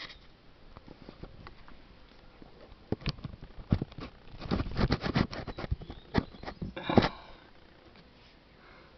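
A cat sniffing right at the microphone, with a cluster of short clicks and bumps against the camera from about three to seven seconds in.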